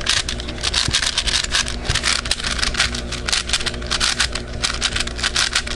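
A modded 6x6 V-Cube puzzle being turned quickly by hand: a rapid run of plastic clicks and clacks, many a second.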